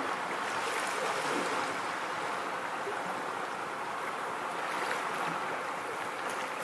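Steady rushing noise, even and unchanging, with no speech or music.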